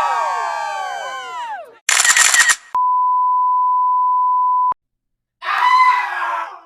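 Sound effects in quick succession: a mass of tones sliding down in pitch and fading out, a short harsh burst, then a steady censor beep held for about two seconds and cut off sharply, followed by another short noisy burst.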